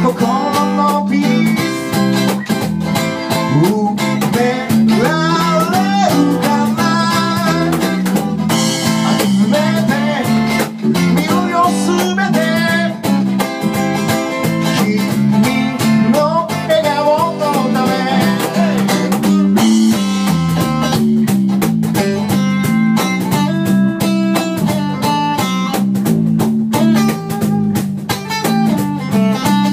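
A small live band playing a song: strummed acoustic guitar, electric bass and percussion with a cymbal, with a voice singing through roughly the first half. After that the band plays on without the voice.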